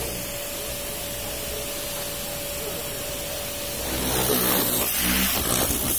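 Car-wash pressure washer running with a steady hiss and a faint steady whine. About four seconds in, its motor hum grows louder.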